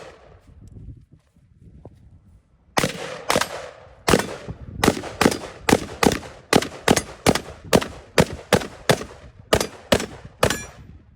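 Black Rain Ordnance semi-automatic rifle fired in quick succession, about nineteen shots at roughly two to three a second, starting about three seconds in after a quiet pause with a faint click. The last shot is followed by a brief metallic ring.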